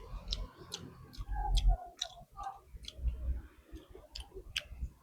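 A person chewing a mouthful of rice, dal and pork gravy close to the microphone, with a scattering of sharp, wet mouth clicks and smacks.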